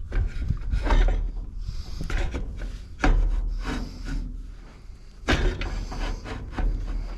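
Wind buffeting the microphone in gusts, with irregular scraping and knocking of parts being worked by hand, a stroke roughly every second, as a part is forced on without seating.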